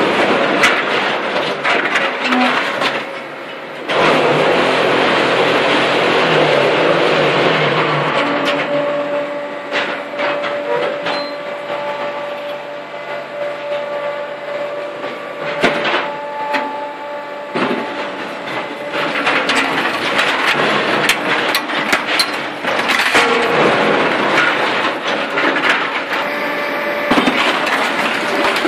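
Concrete paving-block machine running: a steady mechanical clatter with many sharp knocks and a steady hum, getting suddenly louder about four seconds in.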